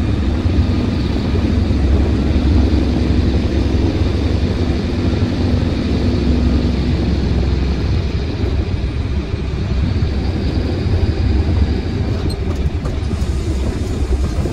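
Truck engine and road noise heard from inside the cab while driving: a steady low drone, with a hum that fades out about halfway through.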